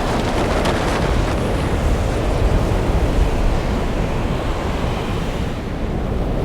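Steady rush of wind past a parachutist in free flight: a continuous noise, heaviest in the low end, easing slightly near the end.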